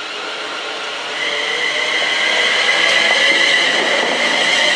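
London Midland Class 350 Desiro electric multiple unit running past close by: a steady high traction-motor whine over wheel and rail noise, getting louder from about a second in as the train comes alongside.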